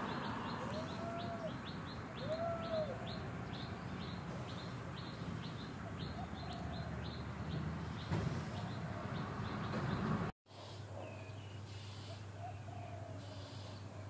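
Birds chirping outdoors: a fast, even series of short, high, falling chirps, about three a second, with two lower calls that rise and fall in the first few seconds. A steady low hum sits underneath. The sound drops out for an instant about ten seconds in.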